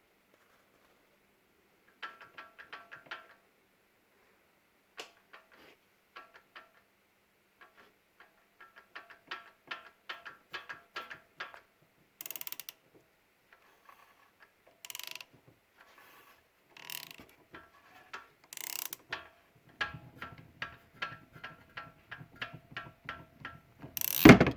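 Kawasaki Brute Force 750 ATV V-twin engine with a rapid metallic ticking rattle, coming in clusters of quick clicks, which the owner treats as an engine fault. Several short hissing bursts break in from about halfway, and a loud thump comes just before the end.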